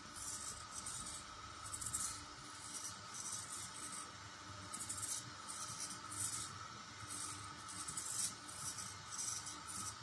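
Small hobby servos of an FPV camera pan-tilt mount whirring in short, irregular bursts as they follow a handheld head-tracking module, over a steady electronic whine.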